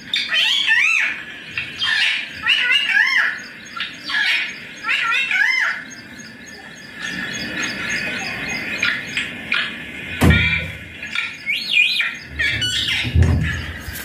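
Indian ringneck parakeet calling in several bursts of short, wavering screeches that rise and fall in pitch, with a low thump about ten seconds in.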